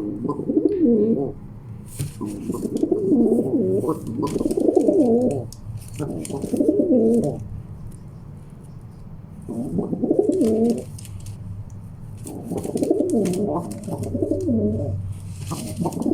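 Male rock pigeons cooing in repeated warbling bouts of a second or two each, about six in all with short pauses between, amid faint clicks. It is the territorial cooing of two males contesting their spot.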